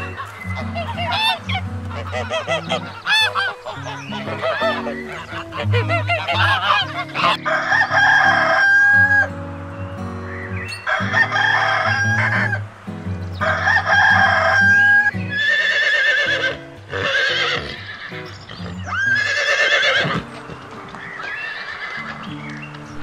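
Bar-headed goose giving many short honking calls, then a rooster crowing about five times, one crow ending in a long held note, over steady background music.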